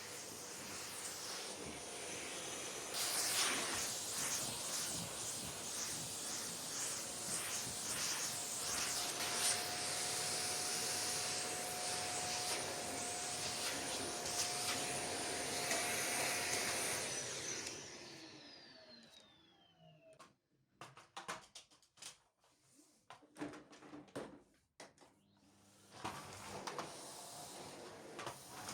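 Vacuum cleaner running steadily. About 17 seconds in it is switched off and its motor winds down with a falling whine, followed by a scatter of clicks and knocks.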